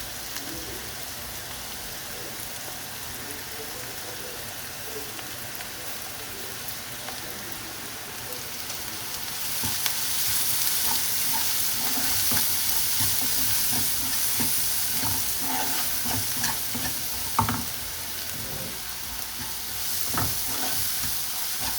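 Chopped onion, bell pepper and chili with spices sizzling in hot oil in a pan while being stirred, the utensil scraping and knocking against the pan now and then. The sizzle grows louder about ten seconds in, and one sharper knock comes past the middle.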